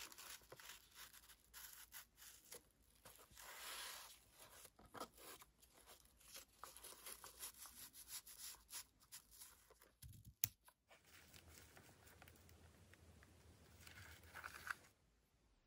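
Faint rustling and scraping of a satin ribbon being pulled, tightened and tied into a bow on a cardboard snack box. There is one sharp click about ten seconds in, and a brief rustle near the end.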